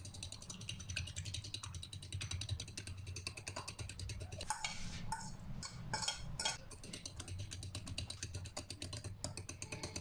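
Metal spoon beating raw eggs in a small glass bowl: a fast, even run of light clicks against the glass, with a few louder clinks and scrapes about halfway through.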